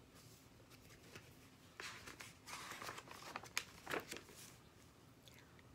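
Faint rustling of a large, flimsy picture-book page as it is turned by hand, lasting a couple of seconds, with a few sharper paper crackles near the middle.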